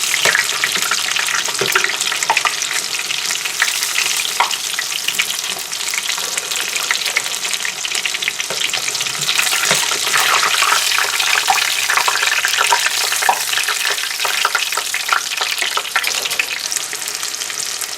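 Panko-breaded chicken breast pieces frying in hot oil in a skillet: a steady sizzle with dense crackling all through.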